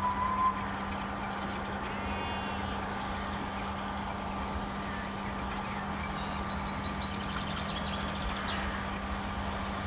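Distant steam locomotive and train approaching, heard as a steady rumble, with a few faint chirps over it. A short high tone ends about half a second in.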